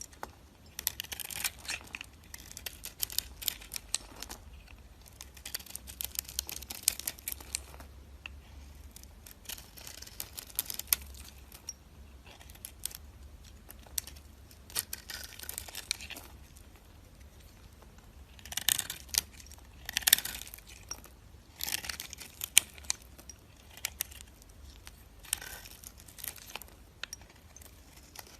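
A knife carving dry soap, making crisp crackling, scraping cuts that come in bursts of a second or two with short pauses between, and some sharp ticks.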